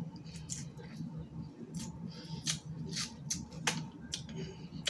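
Eating snow crab legs: a handful of sharp, irregular cracks and clicks from breaking shells and mouth sounds, over a low steady hum.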